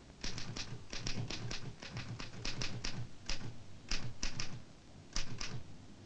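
Manual typewriter being typed on: irregular sharp keystrokes in short runs with brief pauses between them, stopping shortly before the end.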